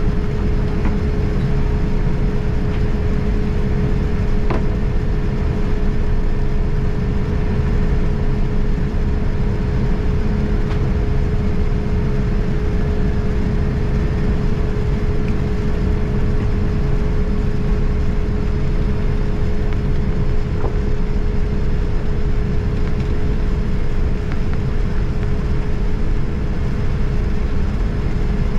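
Boeing 787-9 Dreamliner cabin noise: a steady low rumble with a constant hum above it, and a couple of faint clicks.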